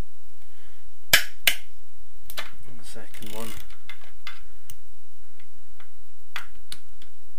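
Ratchet with a 10 mm socket on an extension, clicking as it is worked on a cylinder head bolt of a Honda VFR800 engine. Two sharp clicks come about a second in, a quick rasping run of the pawl follows around three seconds in, and scattered single clicks come after.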